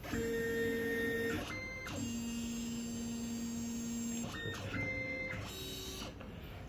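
Stepper motors of an ANYCUT KNC91 key cutting machine whining as the carriage moves into position for cutter height calibration. There are three runs of steady humming: a short one, a lower one lasting about two seconds, then another short one.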